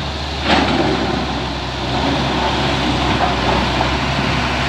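Hitachi EX400 hydraulic excavator's diesel engine running steadily as its bucket works in marble rubble, with one short sharp crunch of rock about half a second in.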